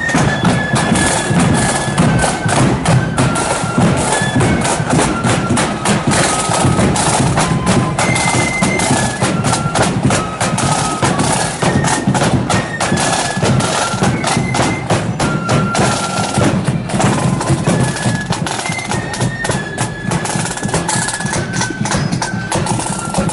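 Marching band playing a tune: a high melody of held and stepping notes over fast, continuous drumming.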